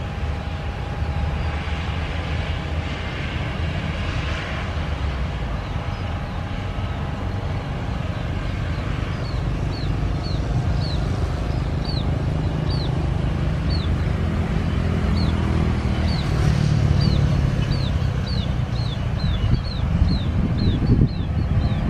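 Low, steady rumble of a jet airliner's engines on the runway, with motorcycles passing close by. From about nine seconds in, a bird repeats a short, high, falling chirp, coming faster toward the end.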